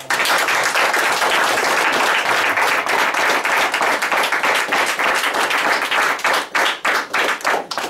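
A roomful of people applauding, the dense clapping thinning into a few separate claps near the end.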